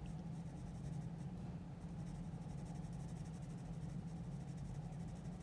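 Graphite pencil shading on drawing paper in light, rapid strokes, over a steady low hum.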